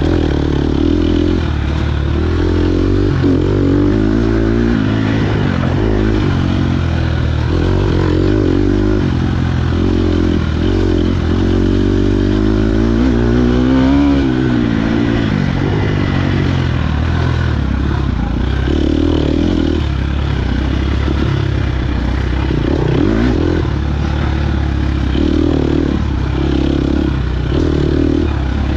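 KTM 250 XC-F single-cylinder four-stroke dirt bike engine ridden hard off road. The revs rise and fall over and over through the gears, with one longer climb and drop about halfway through.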